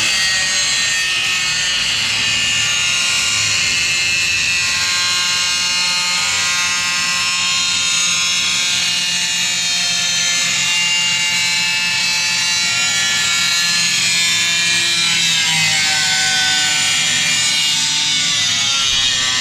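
Electric power tool cutting a steel brace, running steadily with a high motor whine that wavers in pitch about two-thirds of the way in and again near the end.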